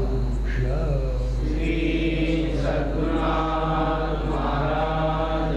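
A voice chanting in long, held notes that slide from one pitch to the next, with a steady low hum underneath.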